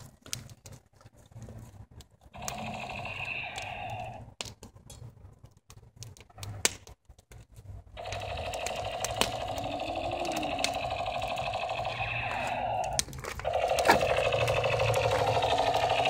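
Light-up toy gun's electronic sound effect: a buzzing, rapidly rattling tone, heard briefly about two and a half seconds in and then steadily from about eight seconds on, with a short break near thirteen seconds. Before that, scattered sharp crackles come from a wood fire in a fire pit.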